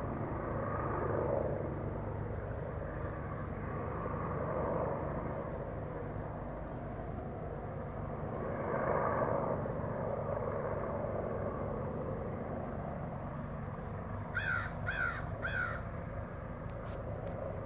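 A helicopter flying overhead makes a steady low rumble that swells and fades. Near the end a crow caws three times in quick succession.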